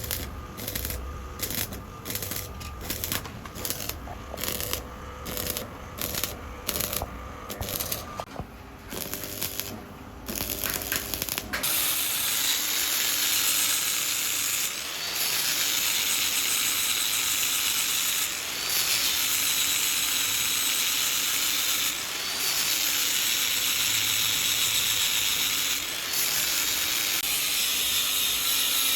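Ratchet-like clicking about twice a second, then, about a third of the way in, a steady loud hissing tool noise starts and runs on with a brief dip every three to four seconds.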